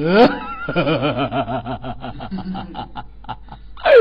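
A person laughing in quick rhythmic pulses with a wavering pitch. Near the end a loud voice sweeps up into a held note.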